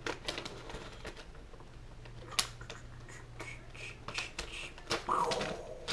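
A cardboard subscription box being opened by hand: scattered clicks, scrapes and rustles of flaps and packaging, with one sharper click a little over two seconds in.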